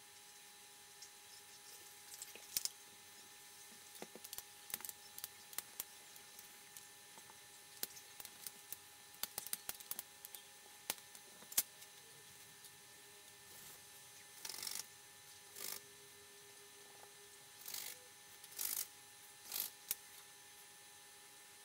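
Hands and a rolling pin working sugar cookie dough on a floured countertop: scattered light taps and clicks, then about five short rubbing or scraping sounds near the end as the dough is pressed and cut, over a faint steady hum.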